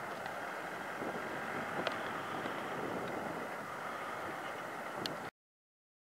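New Holland 8560 tractor's six-cylinder diesel engine running steadily under load, pulling a reversible plough through the field, with a couple of faint clicks. The sound cuts off abruptly about five seconds in.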